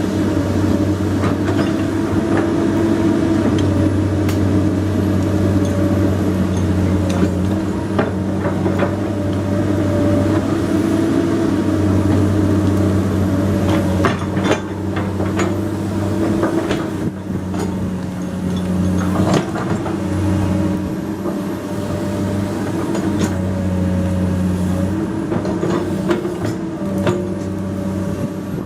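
Komatsu PC200 hydraulic excavator's diesel engine running under working load, its note swelling and easing as the hydraulics work, with scattered knocks and clanks from the machine.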